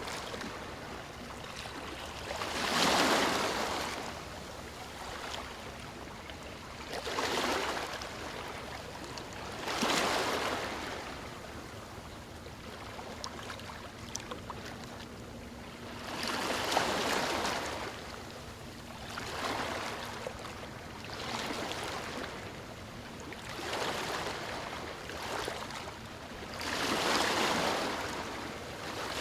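Small waves breaking and washing up a sandy beach, a hiss that swells and fades about every three to seven seconds, some surges louder than others.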